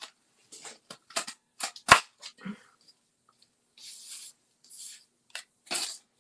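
Plastic paper craft punch and cardstock being handled: a run of clicks and paper rustles, with one sharp knock about two seconds in and paper sliding out of the punch slot near the middle.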